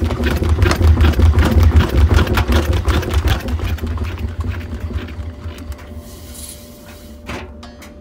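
Front-loading washing machine drum, spun by hand with a single towel inside, rumbling and rattling with fast clicks as it whirls off balance, then slowing and dying away over the last few seconds. A single knock near the end.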